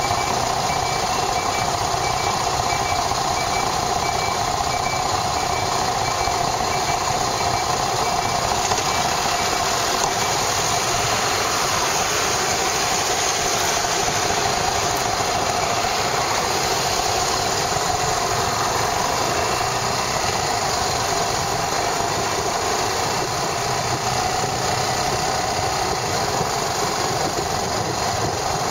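Yamaha SRX400's single-cylinder engine running steadily after a repair, heard from a camera mounted on the motorcycle.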